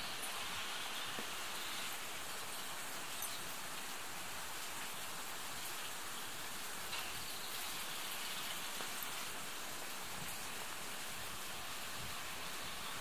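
Steady, even outdoor hiss with no clear source, broken by a few faint ticks.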